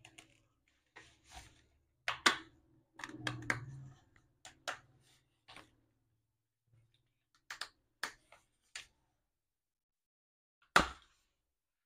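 Craft knife cutting and separating a cardboard ring: irregular sharp clicks and short scrapes, with one loudest click near the end.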